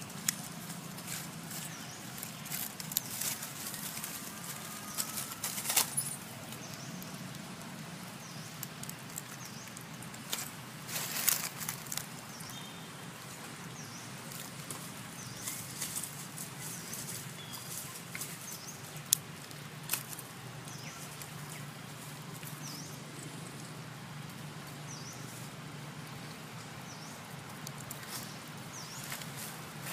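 Dry fallen leaves crackling and rustling as long-tailed macaques move and forage on them, in irregular bursts. A steady low hum runs underneath, with faint high chirps scattered through.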